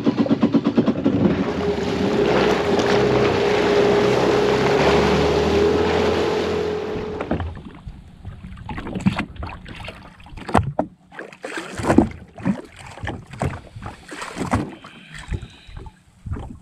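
Jet ski engine running under way with wind and spray noise, holding a steady pitch, then shut off suddenly about seven seconds in. After that, scattered short knocks and clicks and the slap of water at the hull.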